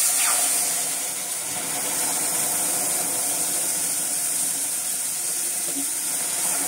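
Hot water poured into a hot kadhai of ghee-roasted wheat flour, setting off a loud sizzling hiss that starts suddenly and keeps up steadily as the water boils in the hot fat: the stage where water goes into the roasted atta for halwa.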